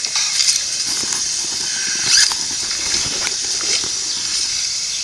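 Crinkling and rustling of a package's wrapping being torn open by hand, with scattered sharp crackles.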